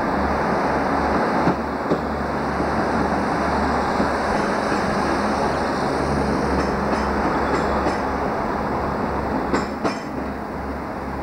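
Class 158 Sprinter diesel multiple unit running alongside the platform: a steady rumble of engine and wheels on rail, with a few sharp clicks over rail joints.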